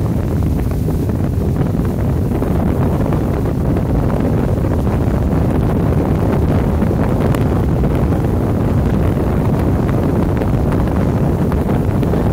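Steady rush of wind on the microphone aboard a moving motorboat, with the boat's running engine and water noise beneath it.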